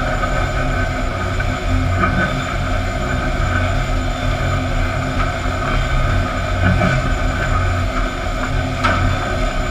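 Sawmill machinery running steadily: chain and roller conveyors moving rough-sawn fence boards, over a constant motor hum, with now and then the knock of a board, the sharpest one near the end.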